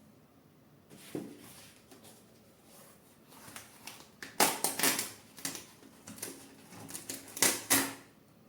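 Hands handling 3D printer parts: an irregular run of clicks, taps and rustles, loudest about four and a half seconds in and again near the end.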